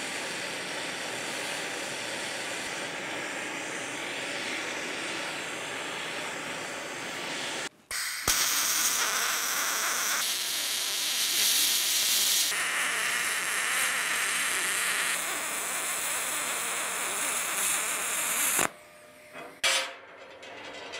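Aluminum being MIG welded: the arc gives a steady hiss for about eight seconds, stops briefly, then runs louder for about ten seconds more and cuts off near the end.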